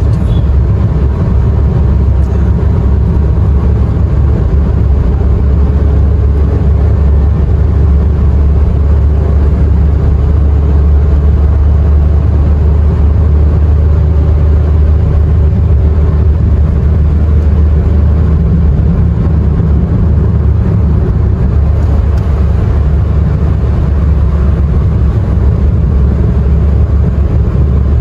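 Steady low rumble of a car being driven: engine and road noise with no change in pace.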